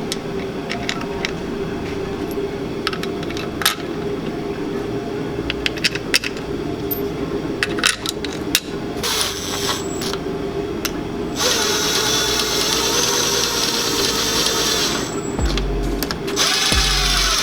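Small power drill or driver running in short bursts, then one longer run of about four seconds, fastening the bolts of a dirt-bike engine's side cover. Scattered sharp clicks of bolts and tools come before it, over a steady hum.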